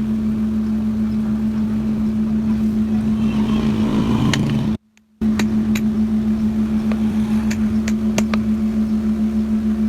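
Steady machine hum with one constant tone and a slight pulse, cutting out completely for a moment about five seconds in. A few sharp clicks come in the second half.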